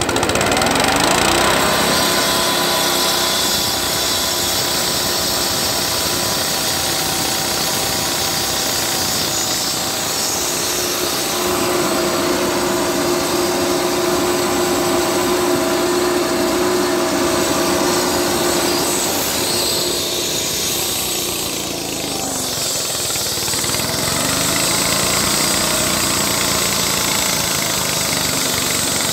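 Diesel walk-behind concrete floor saw running under load, its engine droning steadily while the blade wet-cuts into a concrete slab with a gritty hiss. About three-quarters of the way through the engine note sags briefly, then rises back up to speed.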